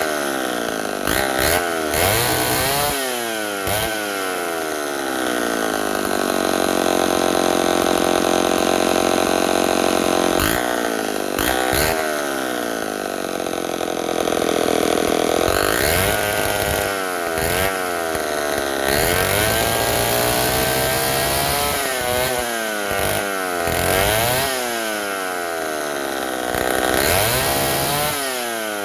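Homelite 770D 95cc direct-drive chainsaw's two-stroke engine running and being revved repeatedly, its pitch rising and falling as the throttle is opened and let back. It is held at high speed for several seconds about a third of the way in. The saw runs loud, with its chain somewhat slack.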